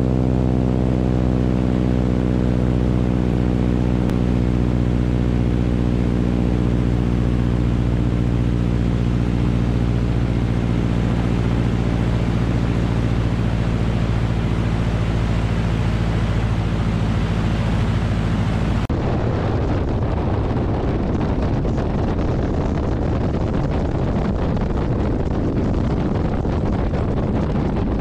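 Radial-engine biplane in flight: the engine and propeller drone steadily at an even pitch. About two-thirds through the sound changes suddenly to a rougher rush of wind on the microphone, with the engine underneath.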